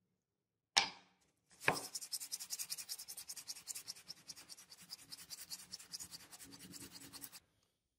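A white cast disc rubbed by hand on dark sandpaper: after two knocks near the start, a fast, even run of scratchy sanding strokes, several a second, that stops about a second before the end.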